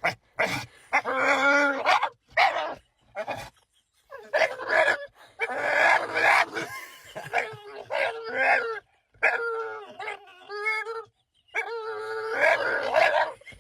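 A dog howling and whining in a string of wavering, pitched calls with short breaks between them, some brief and some drawn out for a couple of seconds.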